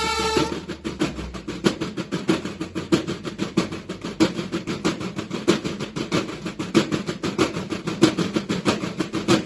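Snare drums of a drum and bugle corps playing a fast, steady marching cadence with regular accents, after a held bugle note that cuts off about half a second in.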